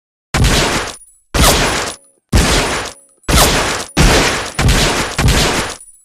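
M1911A1 .45 ACP semi-automatic pistol fired about seven times, each shot sharp with a ringing tail; the first shots come about a second apart, the later ones faster.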